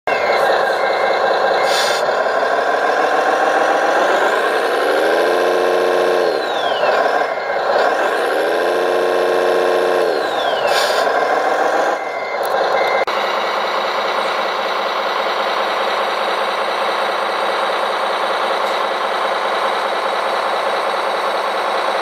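RC truck's sound module playing a diesel engine that revs up and down, with reversing beeps near the start and again around twelve seconds in. About thirteen seconds in it switches abruptly to a steady engine sound.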